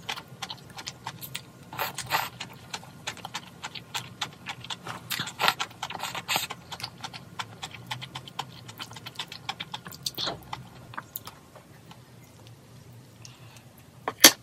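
Many small clicks and taps, with a few short rustles, from food containers, lids and utensils being handled for a meal of mala tang; the clicking thins out over the last few seconds.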